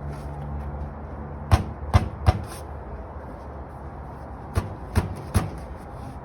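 Six sharp knocks in two quick runs of three, each knock about 0.4 s apart, the runs about three seconds apart, over a low background hum that carries a steady tone until about a second and a half in.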